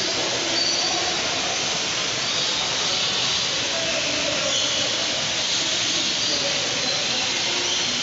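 Steady, loud rushing hiss of the aviary's ambience, with faint short high-pitched calls over it now and then.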